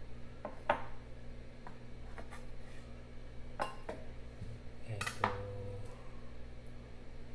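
Kitchen prep clatter: a handful of scattered knocks and clinks as a chef's knife, a glass bowl and a cutting board are handled on the counter, the loudest about five seconds in.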